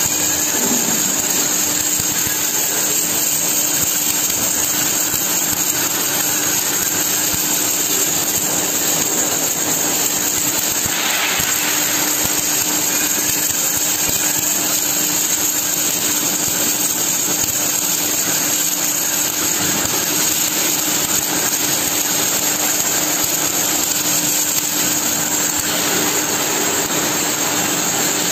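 MIG (gas-shielded wire-feed) welding arc on steel plate, driven by an automatic welding carriage, running with a steady, even hiss and a steady hum beneath it.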